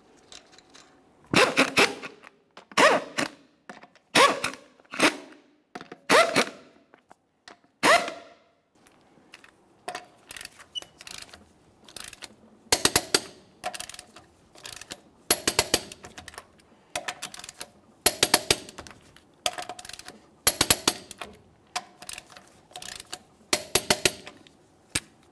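Repeated short bursts of ratcheting clicks from a long-handled torque wrench tightening the wheel's lug nuts down to torque, 122 foot-pounds.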